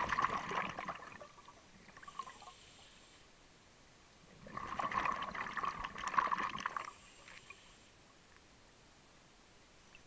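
A scuba diver breathing through a regulator. Exhaled bubbles gurgle out in a burst at the start and again about four and a half seconds in, with a faint hiss of inhalation between them.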